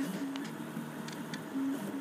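3D printer's stepper motors running as it prints, giving short steady hums that jump from pitch to pitch every fraction of a second as the axes change speed and direction, with a few faint ticks.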